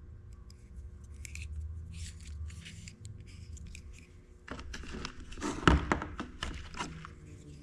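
Hand tools snipping and clicking on electrical wire. Softer rustling and handling come first, then a run of sharp snips and clicks in the second half.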